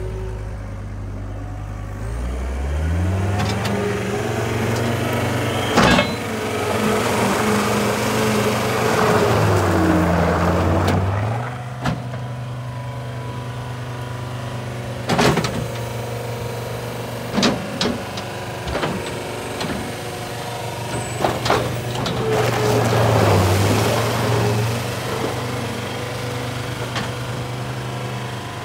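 John Deere 326D skid steer loader's diesel engine running, its pitch rising about two seconds in, then dipping and climbing again twice under a rushing hiss. Several sharp clanks break in along the way.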